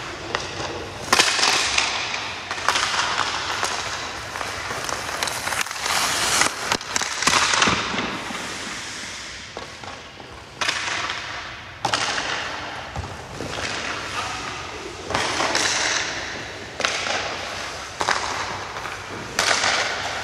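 Ice hockey skate blades scraping across rink ice in repeated sweeps about a second long, many starting sharply, with sharp cracks of stick and puck impacts among them.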